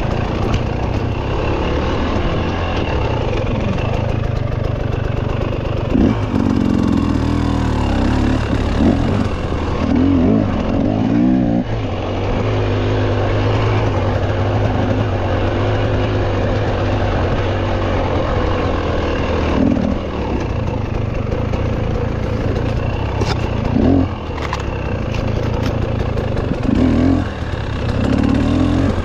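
Off-road dirt bike engine running at low revs, blipped up in short throttle bursts again and again as the bike picks its way over rocks, with a few sharp knocks.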